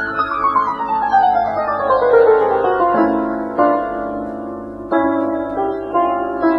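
Background piano music: a quick run of notes falling in pitch over the first three seconds, then held chords struck about every second and a half.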